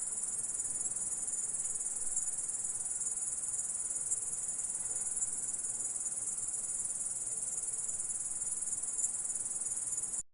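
Grasshopper stridulating: a continuous, steady, high-pitched buzzing trill.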